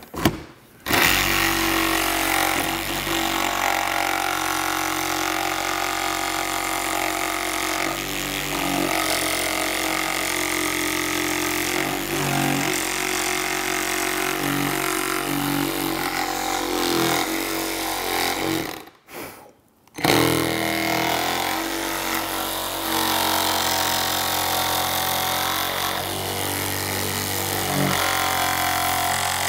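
One-handed Milwaukee reciprocating saw with a jigsaw-style blade cutting through a motorcycle saddlebag lid along a template. It starts just under a second in, runs steadily, stops for about a second a little past the middle, then starts again.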